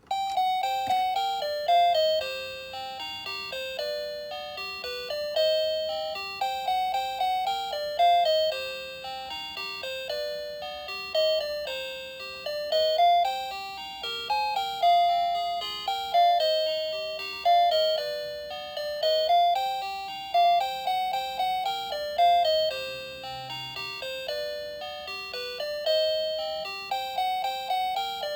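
Garbage truck's electronic chime melody: a tune played in bell-like notes, each struck and then fading, one after another.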